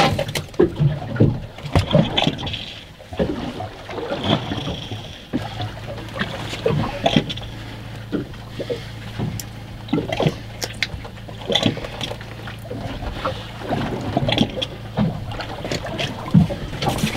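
Water slapping against a boat's hull with scattered knocks and thumps as a freshly landed tautog is handled, over a low steady hum.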